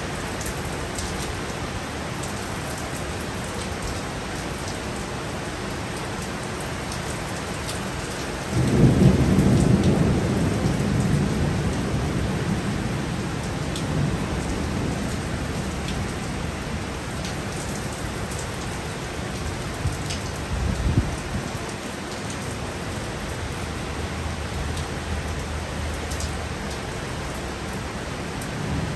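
Heavy rain falling steadily, with a sudden loud clap of thunder about a third of the way in that rumbles away over several seconds. A second, shorter crack of thunder comes about two-thirds of the way through.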